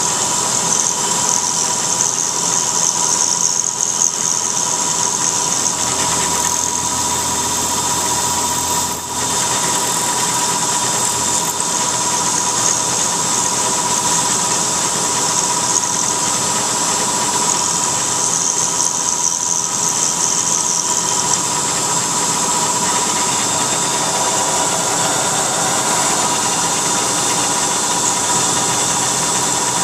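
CNC milling machine cutting aluminum with a small end mill under flood coolant. It gives a steady high-pitched cutting note over a strong hiss, with a brief dip about nine seconds in.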